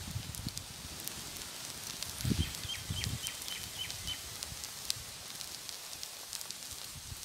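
Onion uthappam frying in oil on a hot stone griddle under a banana leaf: a steady sizzle with scattered crackles and pops.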